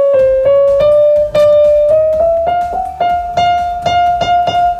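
Steinway & Sons grand piano: single notes struck one after another, about three a second, climbing slowly in small steps of pitch. This is a voicing check, comparing the tone of neighbouring notes to find uneven hammers.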